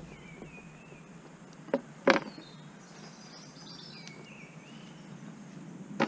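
Songbirds singing short, gliding whistled phrases over outdoor ambience. Two sharp knocks, a fraction of a second apart, come about two seconds in, the second louder.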